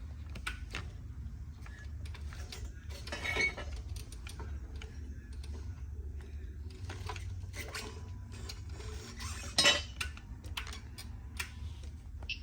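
Light clicks and clinks of a power wheelchair joystick controller being worked and handled on a bench tester, with a sharper click about three seconds in and another near the end, over a steady low hum.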